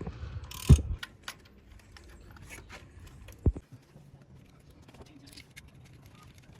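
Tools and car parts being handled during an oil change: scattered metallic clicks and clinks, with two heavier knocks, one about a second in and one about three and a half seconds in.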